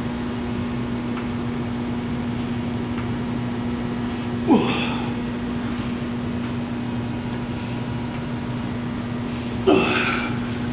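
A man's short, strained grunts with a forceful breath, twice about five seconds apart, from exertion while pressing reps on a chest press machine. A steady low hum runs underneath.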